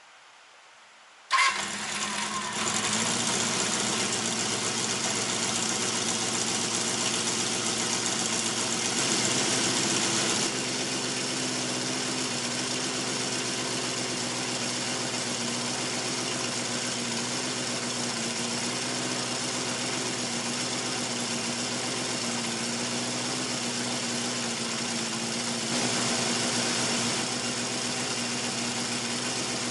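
Honda CB350F's air-cooled inline-four engine starting about a second in, then idling steadily: held a little higher for the first several seconds before settling, with a brief rise in revs near the end. The owner suspects an exhaust leak is behind an abnormal noise from this engine.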